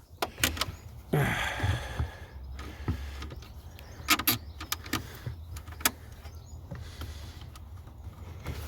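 Hand tools and metal fixings being worked in a van's engine bay: scattered clicks and knocks, with a scraping rustle about a second in, as a small 10mm bolt is fitted by hand.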